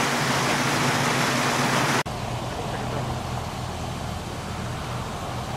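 Muddy floodwater rushing loudly through a washed-out roadbed, an even rush that cuts off abruptly about two seconds in. After it, a quieter steady low hum of a vehicle engine running.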